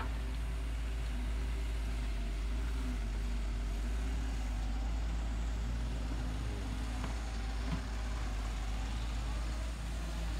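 Wheeled excavator's diesel engine running steadily while the machine digs earth, a continuous low rumble with a few faint clicks of the bucket and arm.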